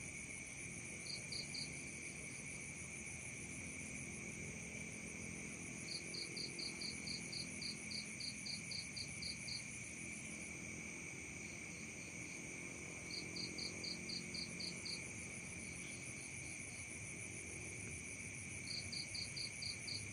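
Night-time chorus of crickets and other insects, a steady high-pitched trill at several pitches. Over it one louder cricket chirps in runs of quick even pulses, about four a second, four times: briefly about a second in, a long run in the middle, a shorter one after, and again near the end.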